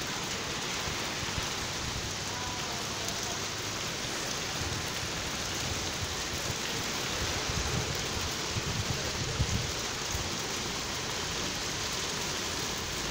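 Hail mixed with snow falling steadily, an even, dense hiss of pellets on the ground and surfaces. A few brief low rumbles come through about two-thirds of the way in.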